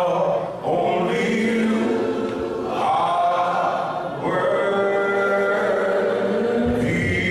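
A choir singing a cappella, several voices in harmony on long held notes.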